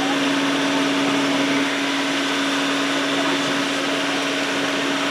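Tourist boat's motor running steadily: a constant hum over an even wash of noise.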